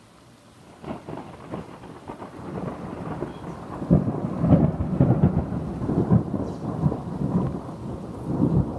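Thunder from a nearby lightning strike: it begins about a second in with sharp, crunchy crackles and builds into a loud rumble full of crackling from about four seconds in.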